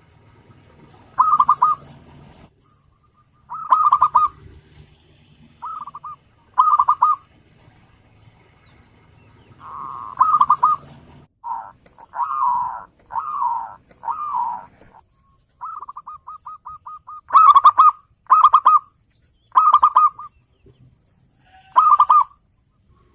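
Zebra dove (perkutut) cooing: repeated short rolling coo phrases, with a few lower, sliding coos around the middle and a quick run of separate staccato notes a little past halfway.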